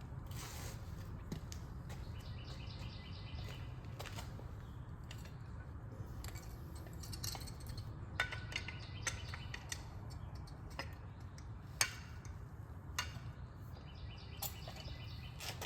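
Steady low hum with scattered light clicks and knocks, and a few short high chirps.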